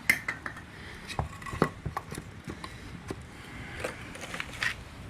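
Hand tools and metal parts being handled: irregular sharp clinks and knocks, the loudest near the start and about a second and a half in, with a quicker cluster near the end.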